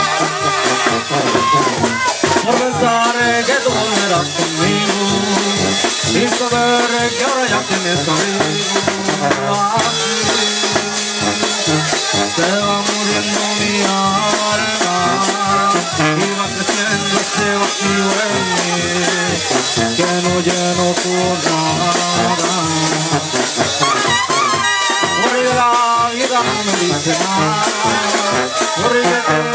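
Live tamborazo brass band playing: a sousaphone bass line and trumpets and trombone on the melody over a steady beat on the tambora bass drum and cymbal.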